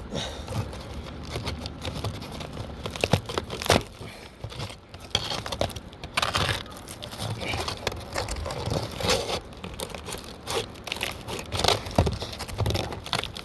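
Irregular scraping, crinkling and sharp clicks of stiff asphalt shingles being worked loose, with a hammer slid underneath to get at the nails.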